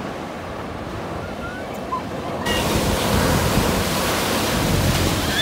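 Ocean surf: waves washing in and breaking on a sandy beach. About halfway through the rush grows suddenly louder and hissier, with a wave breaking close by.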